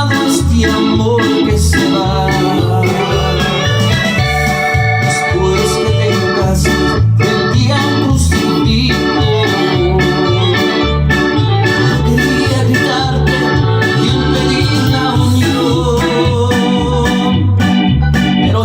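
Electronic organ music: held chords and a melody over a steady bass beat, about two beats a second.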